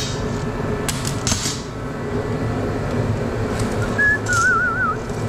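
Steady hum and rush of a blow heater's fan, with a few sharp clicks and taps of metal being handled. Near the end, a short warbling whistle, rising then wavering.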